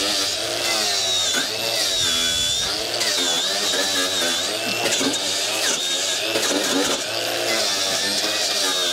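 Corded angle grinder with a wire cup brush running under load as it scours old tar off a screw head on a steel roof panel. Its pitch wavers up and down as it is pressed onto the panel.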